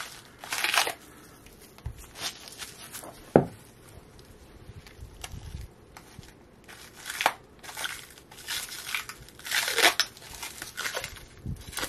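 A clear plastic bag crinkling and rustling in short bursts as it is handled and pulled open to get at a stack of ferrite toroid cores. A single sharp click a little over three seconds in is the loudest sound.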